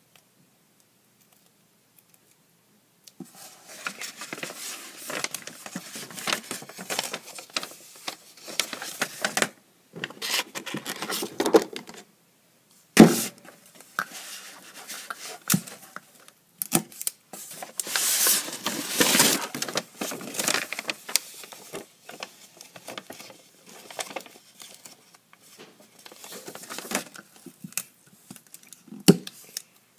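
Handling noises on a desk: rustling, scraping and clattering of paper and small craft items, with sharp knocks, the loudest about 13 seconds in. Starts about 3 seconds in after near silence.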